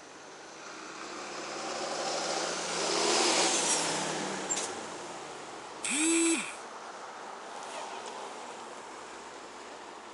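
A vehicle passing by in street traffic, its tyre and engine noise swelling and fading away. About six seconds in, a short pitched toot sounds once.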